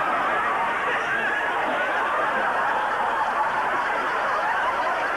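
Studio audience laughing, a steady mass of many voices reacting together.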